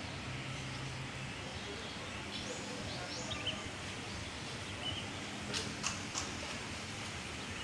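Steady outdoor background noise with a few faint bird chirps, and a few sharp clicks or taps about two-thirds of the way through.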